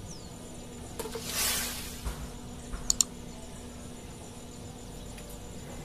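Brief splash of water about a second in, as a hooked tilapia is lifted from the pond at the bank, followed by a quick cluster of sharp clicks near the middle.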